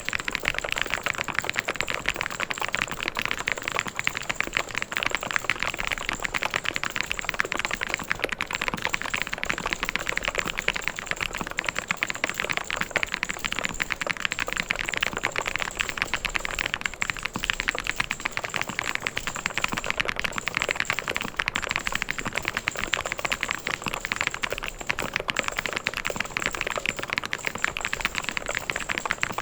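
Fast, continuous typing on a mechanical keyboard: a dense, even stream of key clicks and clacks with no pauses.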